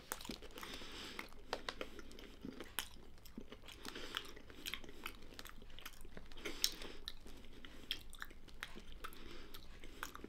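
Tuc Baked Bites crackers being chewed on toothless gums: irregular crunching, several small crunches a second.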